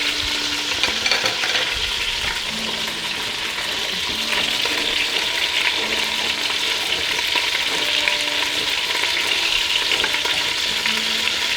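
Chicken pieces frying skin-down in hot oil in a pan, a steady sizzle with fine crackling as they brown.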